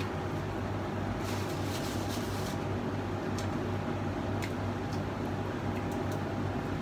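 Faint crunches of a person chewing fried vegetable pakora, a cluster of them a little over a second in and a few single ones later, over a steady low hum.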